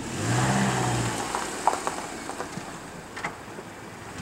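Toyota Corolla pulling away slowly, with a low engine hum in the first second, then quiet running with wind on the microphone and a few light clicks.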